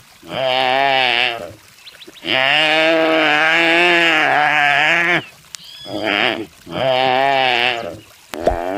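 Deer bleating in a series of wavering calls, five in all, the second a long one of about three seconds.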